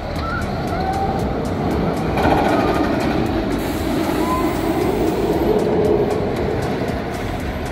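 Jersey Devil Coaster train on its chain lift hill: a rapid, even clacking of about three or four clicks a second over a steady rushing noise that grows louder about two seconds in.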